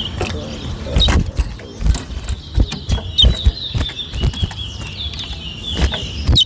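Towa-towa (chestnut-bellied seed finch) singing a long, fast warbling song from about halfway in, over a string of sharp knocks and clicks.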